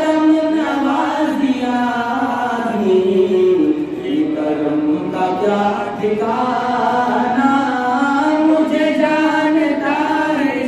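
A man chanting a devotional Islamic prayer solo, his voice alone in long, melodic held notes that wind up and down in pitch.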